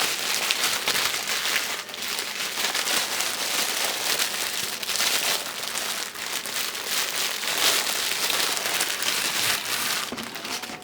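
Packaging crinkling and rustling as a hookah hose is unwrapped, a dense run of crackles that stops shortly before the end.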